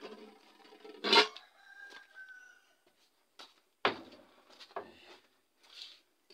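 Short wooden knocks and handling clatter from someone moving through a house, the loudest about a second in and another near four seconds. A faint, drawn-out bird call sounds just after the first knock.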